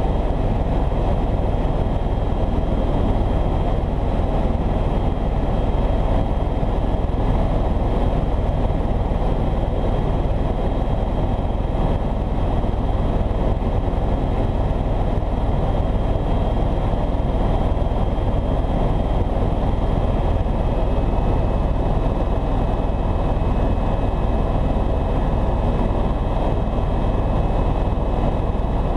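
Helicopter in flight heard from inside the cabin: a steady drone of rotor and engine, with a faint high whine above it.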